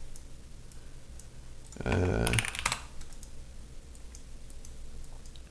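Computer keyboard typing: scattered, light keystrokes. A brief spoken sound about two seconds in.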